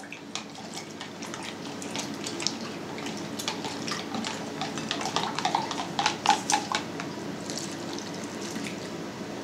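A metal spoon stirring yeast dissolved in water in a plastic measuring jug: irregular light clicks and scrapes against the jug's sides, with the liquid swishing. Near the end the jug is tipped and the liquid poured out.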